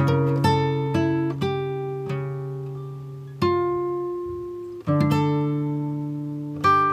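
Background music: an acoustic guitar picking single notes and chords that ring out and fade, with a few fuller chords struck further apart in the middle.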